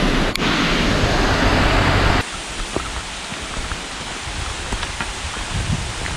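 Mountain stream running, a steady rush of water that drops suddenly to a softer level about two seconds in, with faint footsteps on a gravel trail after that.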